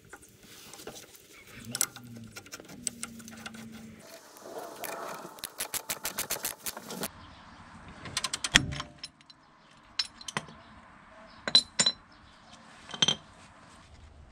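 Steel hand tools clinking as a ball-joint extractor is fitted to a car's steering ball joint. A ratchet clicks quickly for about a second and a half midway, followed by several sharp metallic clanks, the loudest a little past halfway.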